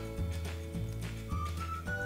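Background music: a light melody of held, high notes over a bass line that changes about twice a second.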